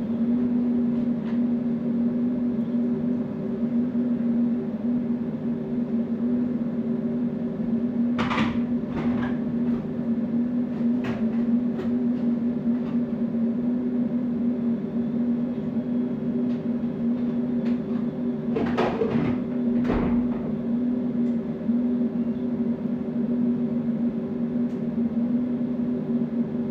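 Laser machine for removing iPhone back glass running its second pass: a steady, even hum, with a few brief clicks about eight seconds in and again about nineteen seconds in.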